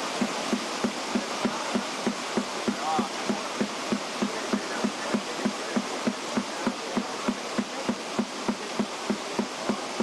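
Drum beating evenly, about four beats a second, over a steady rattling hiss.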